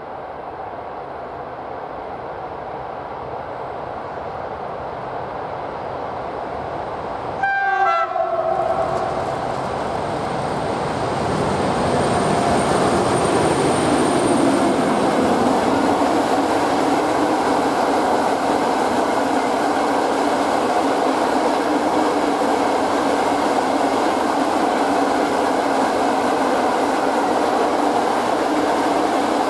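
15D diesel locomotive hauling a mixed freight train past, with a short horn blast about seven seconds in whose pitch drops. The locomotive and wagons then run by, getting louder and staying loud, the wagon wheels clattering over the rail joints.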